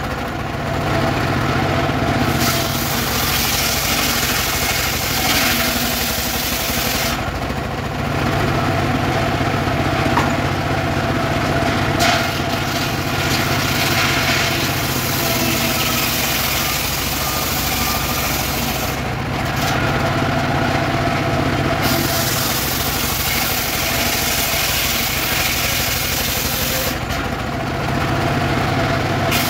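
Engine-driven homemade circular saw bench running steadily, its blade ripping weru wood boards lengthwise. The engine drone stays constant, while a higher cutting hiss comes and goes as boards pass through the blade, with short spells of the blade spinning free between passes.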